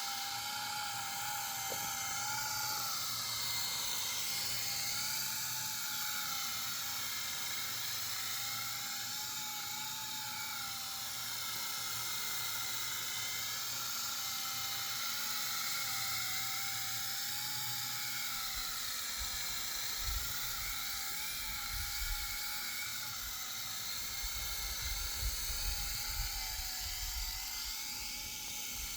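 Electric RC helicopter's motor and rotor whining steadily, the pitch wavering up and down as the throttle changes. From about two-thirds of the way in, wind rumbles on the microphone.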